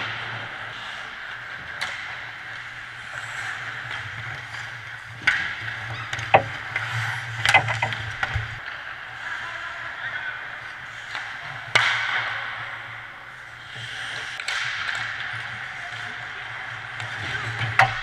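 Ice hockey play on a rink: skate blades scraping the ice, with sharp clacks of sticks and puck every few seconds, the loudest near the middle.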